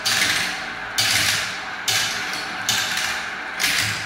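Many small plastic balls rattling and clattering as they swirl around clear plastic marble-run funnels and drop into plastic tubes, with a fresh surge of clatter about once a second.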